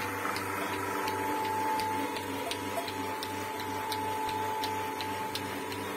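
Portable bucket milking machine running on a cow: its vacuum pump motor hums steadily while the pulsator clicks in a regular rhythm, about three times a second.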